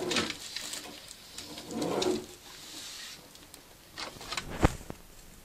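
Thin rope running through small ceiling pulley blocks as a hanging mesh storage organizer is hauled up, with soft rustling and scraping, then a few sharp clicks near the end.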